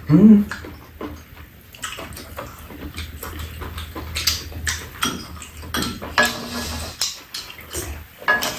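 Metal spoons clinking and scraping against a pan and bowls in short scattered clicks, with the mouth sounds of people eating. A brief rising vocal sound, the loudest thing, comes right at the start.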